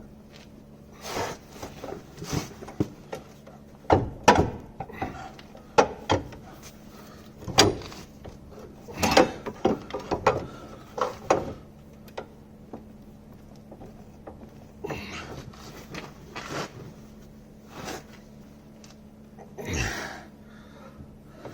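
Irregular metal knocks, clicks and short scrapes of hand tools working at a seized part of a Citroen Saxo's front suspension, freeing it for the driveshaft removal. The sounds come in scattered clusters, busiest in the first half.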